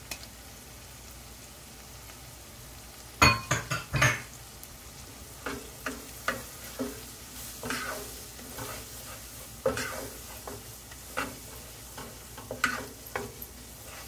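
Wooden spatula stirring and scraping chopped onion and flour around a nonstick frying pan in short repeated strokes, over a faint sizzle of butter. A few sharp knocks come about three to four seconds in.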